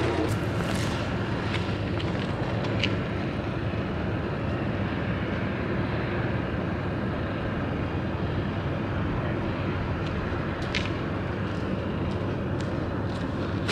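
Steady rushing outdoor background noise with a few faint clicks.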